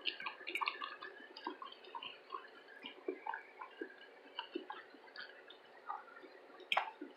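Faint, irregular clicks of a person chewing food close to the microphone.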